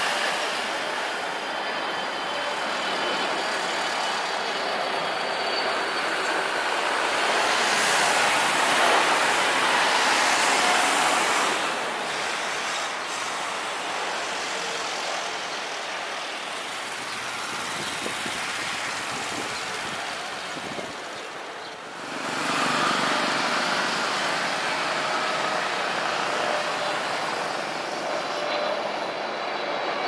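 Jet engines of a landing Boeing 767-200 airliner: a steady broad rushing noise that swells about eight to eleven seconds in as it passes and touches down. About 22 seconds in the noise dips briefly, then picks up again.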